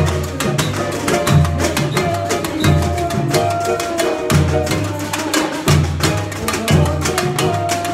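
Samba bateria playing live: surdo bass drums keep a steady low beat under fast, dense snare and shaker rhythms, with a few held pitched notes above.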